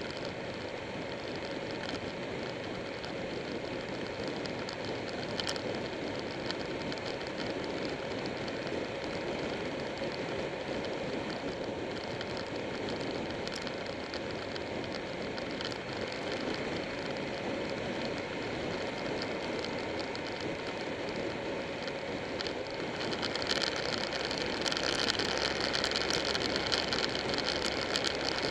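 Buell 1125R's V-twin engine running steadily at road speed, heard from a bike-mounted camera together with rushing wind and road noise. The noise swells louder and hissier near the end.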